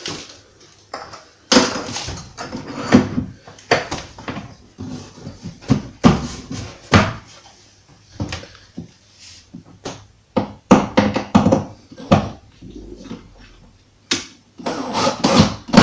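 Irregular knocks and clatter from tools and a wooden cabinet door being handled during hinge fitting.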